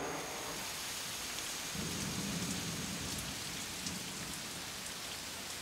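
Heavy rain falling steadily on forest leaves, with a low rumble joining about two seconds in.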